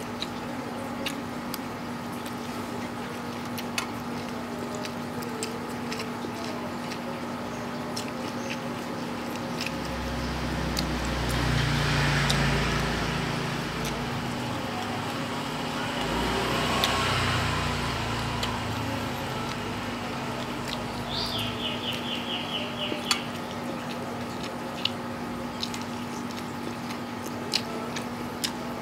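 Eating sounds from instant noodles eaten by hand: small wet clicks and smacks of chewing throughout, over a steady hum. Twice, around the middle, a passing vehicle swells up and fades away.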